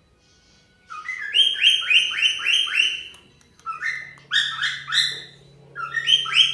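Pet cockatiel calling: three runs of quick, rising whistled notes, the first starting about a second in.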